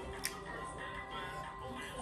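Background music with steady held tones, and one sharp click about a quarter of a second in.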